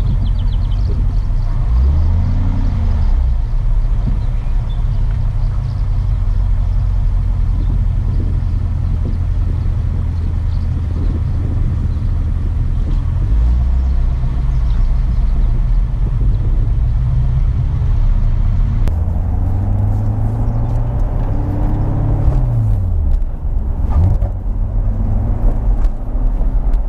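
Chevrolet C7 Corvette Stingray's V8 driving along, a steady rumble of engine, tyres and wind, with the engine note rising and falling as it speeds up and eases off, about two seconds in and again near the twenty-second mark.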